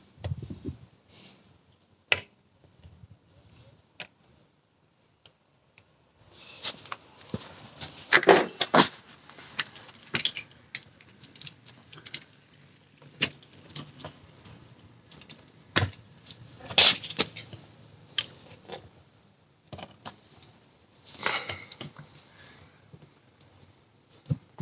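Metal pliers clicking, scraping and clattering against a screw stuck in a car tyre's tread, in several irregular bursts, as the jaws slip off the screw head without getting a grip.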